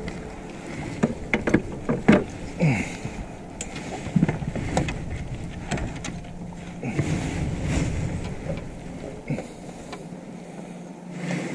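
Scattered knocks and clatter of hands and gear on a small boat's hull while a caught fish is handled, with wind on the microphone. A low steady hum sets in about four seconds in.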